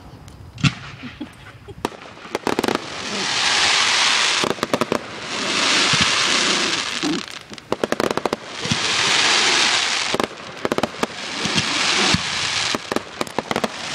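Fireworks going off: clusters of sharp cracks, each followed by a long crackling hiss of a second or two. The pattern repeats about every three seconds.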